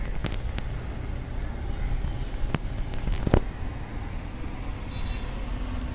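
Steady low outdoor background rumble with a few sharp clicks, the loudest about three and a half seconds in.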